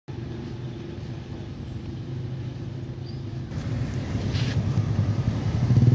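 A motorcycle engine running steadily nearby, a low hum that grows louder through the second half.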